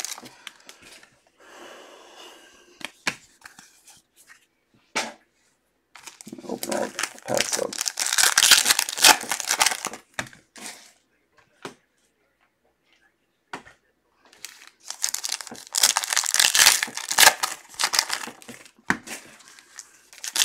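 Foil trading-card pack wrappers being torn open and crinkled by hand. There are two long stretches of rustling and tearing, one about a third of the way in and one after the middle, with scattered small taps and clicks of card handling between them.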